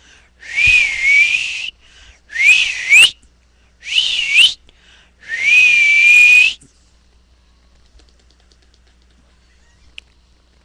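A person whistling four times to call a cat, each whistle a breathy single tone that wavers around one pitch, the second and third sweeping sharply up at the end. A small click near the end.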